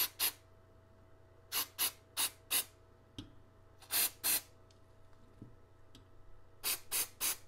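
Aerosol electrical contact cleaner (CRC QD) being sprayed onto a model train motor: about a dozen short hissing spray bursts, mostly in quick pairs, with pauses of a second or two between them.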